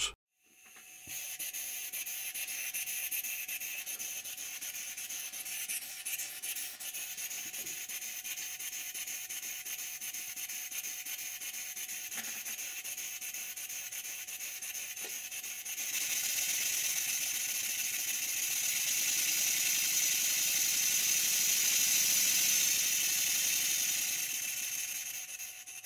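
Stuart 10H horizontal model steam engine running on compressed air, a steady hissing exhaust that starts about half a second in, gets louder about two-thirds of the way through and fades near the end. It isn't sounding right, which the owner puts down to air blowing past the piston, the valve, or both.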